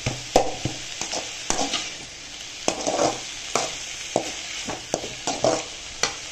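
Perforated steel spatula scraping and clinking against a metal kadai while stirring onions, green chillies, curry leaves and grated coconut frying in it. Irregular strokes about twice a second over a steady sizzle.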